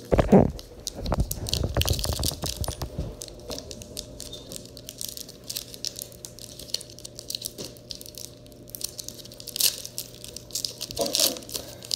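Foil booster-pack wrapper crinkling and tearing as it is opened by hand, in many small crackles. Several heavy handling thumps come in the first few seconds.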